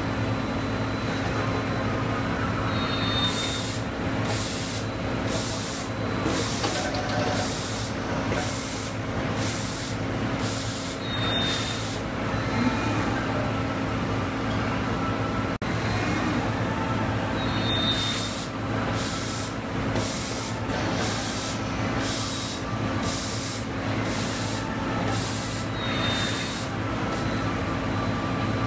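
Amada Vipros Z turret punch press and its automatic tool changer running: a steady machine hum with two runs of about ten short compressed-air hisses, roughly one a second, each run opening and closing with a brief high chirp.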